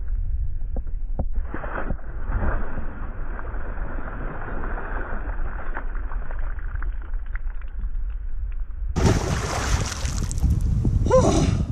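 Wind buffeting the microphone over a low rumble, while a released catfish splashes into the water beside a kayak. About nine seconds in, the sound turns abruptly to a brighter wind hiss, and a short breathy voice sound comes near the end.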